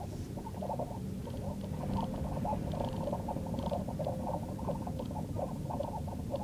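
Weird noise from the rear of a Lexus RX450h: a fast, irregular ticking chatter over a steady low rumble, with a faint steady tone behind it.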